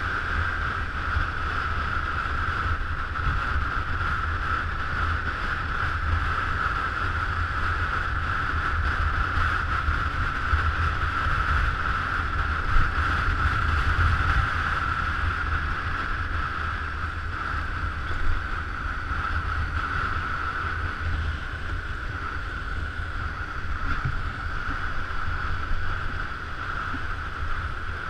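Motor scooter riding at a steady speed: wind buffets the microphone with a constant low rumble, over a steady high-pitched hum.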